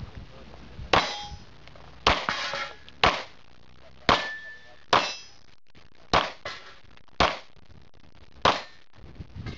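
Pistol shots fired at a steady pace, about one a second, eight in all, with steel targets ringing after several of the hits.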